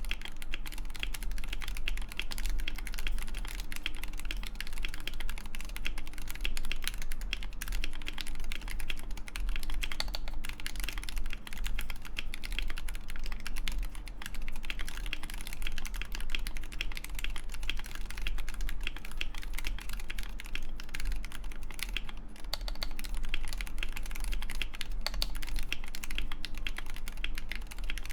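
Continuous fast typing on a custom 60% mechanical keyboard: Gateron Lekker L45 magnetic switches lubed with Krytox 205g0, in a Mekanisk FJELL case with a full steel plate, foam dampening and MW Lilith keycaps, giving a steady stream of soft, deep key clacks.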